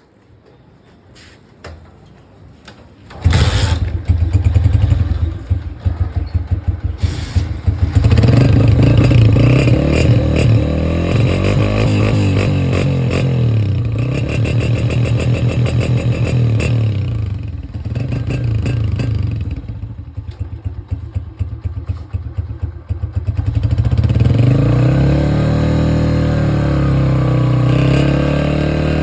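Motorcycle engine starting after a few light clicks, catching abruptly about three seconds in. It then runs, revved up and down several times with spells of lumpier idle in between.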